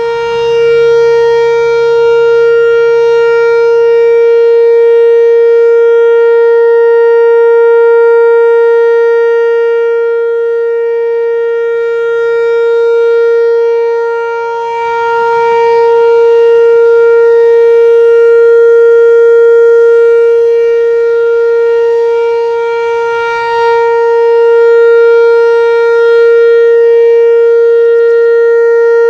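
Whelen WPS-4004 electronic outdoor warning siren sounding its Alert signal: one steady, loud tone that holds the same pitch and carries a rich stack of overtones. It dips briefly in loudness twice.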